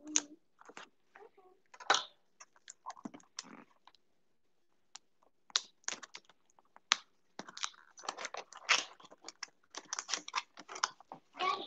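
Cardboard box and packaging being handled and opened: scattered light clicks and crackles that turn into a busy run of crinkling in the last few seconds.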